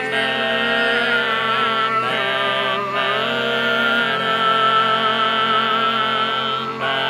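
Overtone singing over a sustained low vocal drone: a high, whistle-like overtone melody wavers and shifts in pitch above the steady held bass note.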